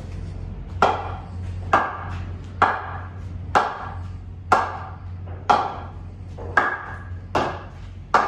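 A hard leather-ball core is bounced repeatedly off the face of a popular willow cricket bat. About nine sharp wooden knocks come roughly one a second, each with a short ringing ping, over a steady low hum. The bouncing is a strength test of the bat's face, to see whether it cracks.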